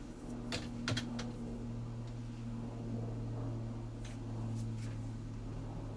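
A few scattered keystrokes on a computer keyboard, a small cluster within the first second and two more about four seconds in, over a steady low hum.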